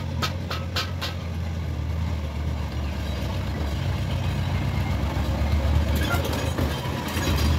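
Jeepney's diesel engine running with a steady low rumble as the vehicle drives up and passes close. A few sharp clicks come in the first second, and a rattle rises near the end as it comes alongside.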